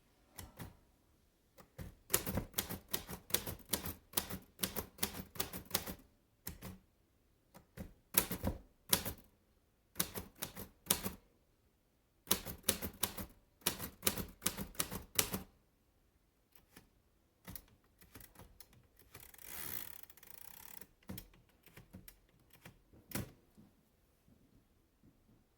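Royal De Luxe Model "A" portable typewriter being typed on: quick runs of key strikes in several bursts with short pauses between them. Later there are a few scattered clicks and one longer rasping noise about three-quarters of the way in.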